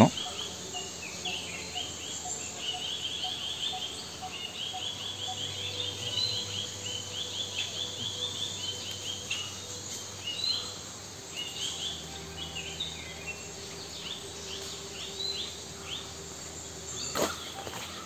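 Forest ambience: quick runs of short, high chirping calls go on throughout over a faint steady hum, with a single sharp click near the end.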